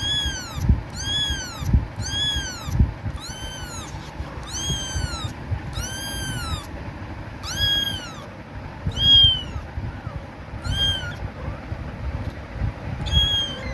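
Kitten meowing loudly and repeatedly, calling for its mother: about ten high, arching meows, one every second or so, with a couple of short pauses. Low thumps sound underneath.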